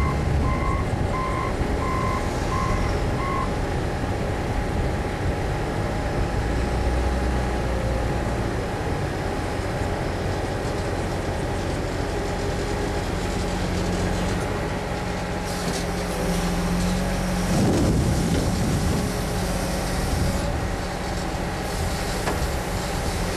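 Diesel engines of a wheel loader and a dump truck running, with a reversing alarm beeping at a steady pace for the first three seconds or so. In the second half the noise grows, with a surge a little after two-thirds of the way through as the loader raises its bucket over the truck's tray.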